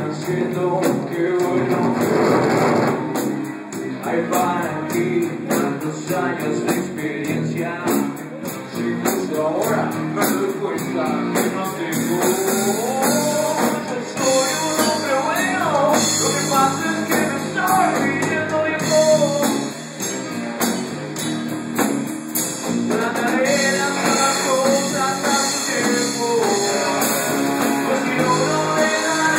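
Live rock band playing: a male singer over electric guitar, bass guitar and drum kit.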